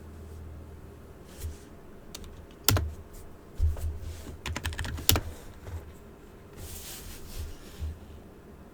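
Computer keyboard keys being typed in irregular clusters, with two sharper, louder key strikes about a third and just over halfway through, over a steady low hum.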